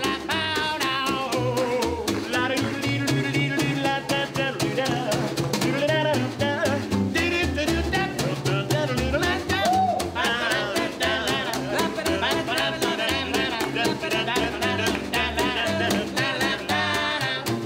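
Acoustic swing trio playing: ukulele strumming, a snare drum played with sticks and an upright bass walking underneath, with a sung vocal line.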